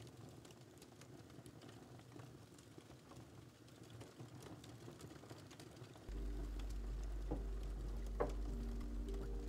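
Faint scattered ticks and rustles. About six seconds in, a steady low hum with a few held tones starts abruptly. Near the end come two light knocks as a ceramic plate is set down on a wooden tray.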